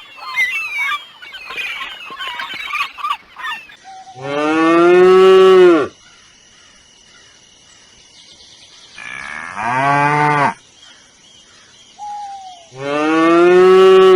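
Domestic cow mooing three times, each moo a long, low call that drops in pitch as it ends; the middle moo is shorter and quieter. Bird calls chatter during the first few seconds.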